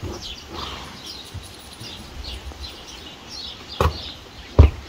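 Small birds chirping over and over, with two sharp knocks near the end, the second the louder.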